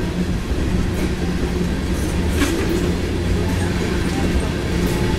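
A CSX freight train's hopper cars rolling past: a steady rumble of steel wheels on rail, with a few clicks as the wheels cross rail joints.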